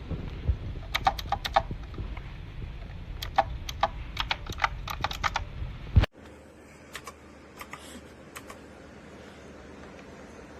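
Typing on a typewriter-style mechanical keyboard: keys clicking in quick bursts. About six seconds in, the sound cuts abruptly to a quieter recording with only a few scattered keystrokes.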